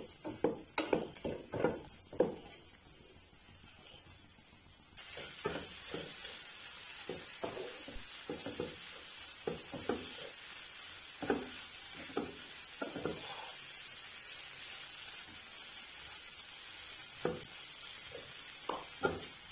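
Yoghurt-marinated chicken pieces frying in a non-stick pan over a raised flame while a wooden spatula scrapes and stirs them, cooking off the last of the liquid so the masala dries. A quick run of spatula strokes comes in the first couple of seconds; from about five seconds in a steady sizzling hiss carries on, with occasional scrapes.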